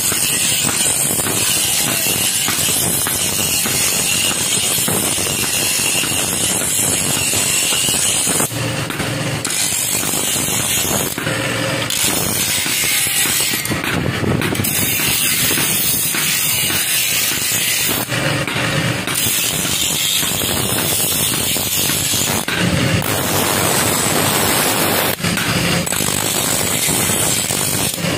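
Steady, loud machine noise with a strong hiss from blacksmith's workshop machinery at work on a sickle, dipping briefly several times.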